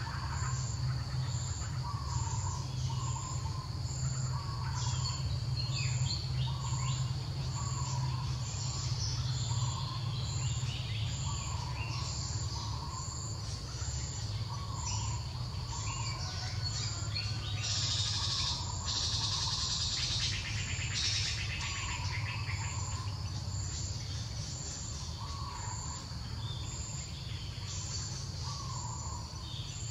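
Outdoor birds and insects: small bird chirps, a short call repeating about every second and a half, and a steady high insect drone with regular pulsing, over a steady low rumble. A louder buzzing hiss, likely an insect, rises for a few seconds past the middle.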